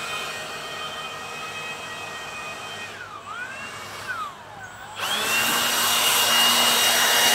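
Cordless electric leaf blower. Its motor whine dips in pitch and climbs back twice, then about five seconds in it runs at full power with a loud rush of air over a steady high whine.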